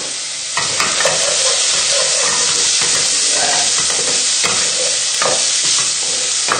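Bacon lardons sizzling in hot oil in a frying pan, just starting to brown, while a utensil stirs them with short scrapes against the pan. The sizzle gets louder about half a second in and then holds steady.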